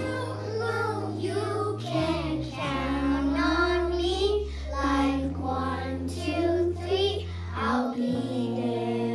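A group of kindergarten children singing a song together, over instrumental accompaniment with long held bass notes.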